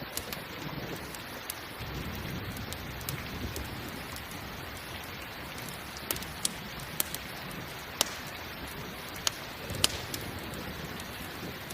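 Steady rain with a campfire crackling: a handful of sharp pops stand out over the hiss of the rain, mostly in the second half.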